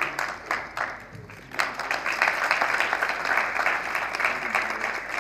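Audience applauding: dense clapping that thins out briefly about a second in, then picks up again.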